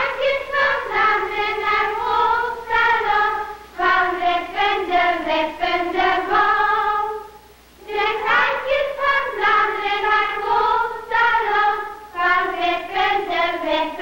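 Young girls' voices singing an old lacemakers' song: two sung phrases of held notes with a short pause between them about seven seconds in.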